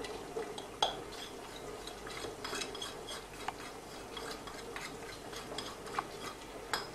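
A teaspoon tapping and scraping against a ceramic plate while ground red pepper is tipped off it into a pan of breadcrumbs, with light scattered ticks and a few sharper clinks.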